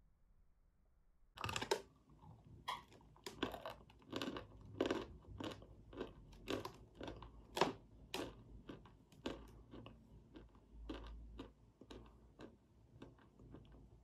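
Biting into and chewing a lump of white chalk: a run of sharp, dry crunches starting about a second in, coming roughly twice a second and growing softer over the last few seconds.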